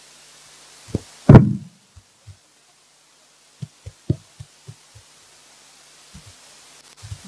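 Muffled thumps and knocks from a handheld microphone being bumped and handled as performers go down onto a carpeted floor. One loud thump comes about a second in, then a scatter of softer knocks.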